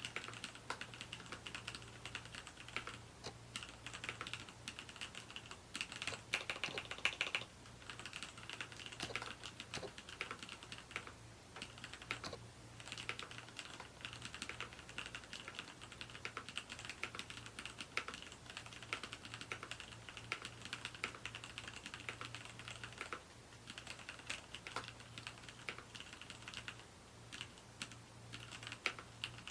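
Typing on a mechanical keyboard with lubed Cherry MX Black linear switches: a continuous run of key presses, with a faster, denser flurry about six to seven seconds in.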